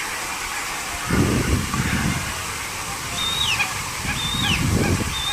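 Outdoor ambience with a steady hiss and low wind rumbles on the microphone; from about three seconds in a bird calls about once a second, each call a high held note that drops sharply in pitch.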